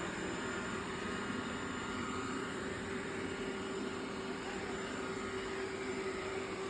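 Xiaomi Robot Vacuum S10+ running at its regular suction setting: a steady mechanical hum of motor and brushes with a constant low tone.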